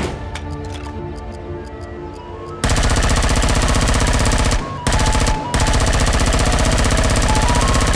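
Background music, then about two and a half seconds in a sudden loud stream of rapid automatic fire from a gel-ball blaster shooting full-auto, running on with two short breaks.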